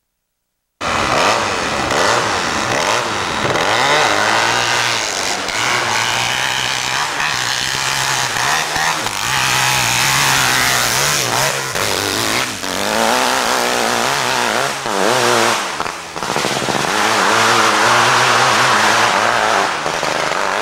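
Hillclimb motorcycle engine run hard at full throttle up a steep hill, its pitch rising and falling as the bike bucks and the rear wheel spins. It cuts in suddenly about a second in, after a moment of silence.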